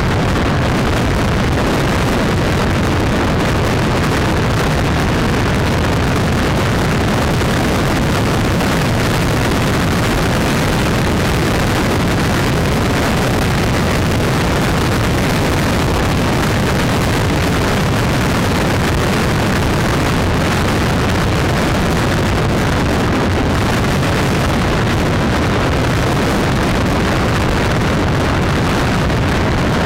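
Steady, loud wind rush on the microphone and road noise at motorway speed, with a vehicle engine running under it.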